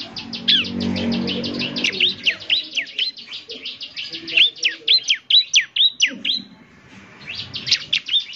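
Bar-winged prinia (ciblek) in full song, a semi-gacor lure track: a fast string of sharp, down-slurred chirps mixed with rapid ticking notes, pausing briefly about six and a half seconds in. A low drone sits underneath for the first two seconds or so.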